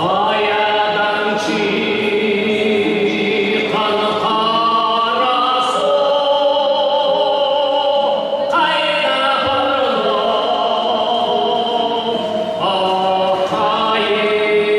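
A man singing in long, held, chant-like phrases, about four in all, to the reconstructed Pazyryk Scythian harp (jadagan).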